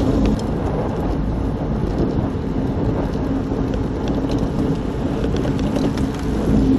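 Engine running at a steady speed with wind rushing over the microphone while on the move.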